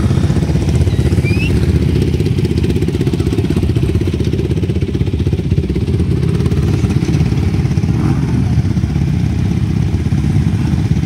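ATV engines idling steadily, a continuous low pulsing engine note with no revving.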